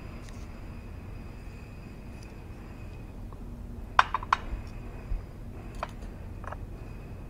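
Metal spoon clinking against small ceramic ingredient bowls: two sharp clinks about four seconds in, then a few fainter ticks, over a faint steady room hum.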